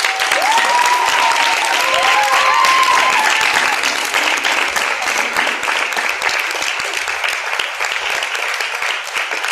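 Audience applauding loudly and steadily after a performance, with a few rising-and-falling cheering calls in the first three seconds.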